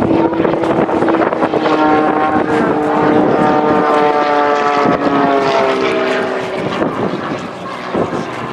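Airplane engine flying past, its drone slowly falling in pitch as it goes by.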